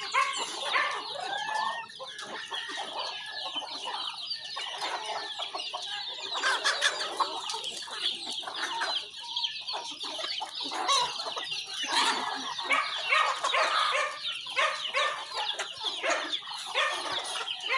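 A flock of chickens and roosters clucking as they feed, many short calls overlapping throughout.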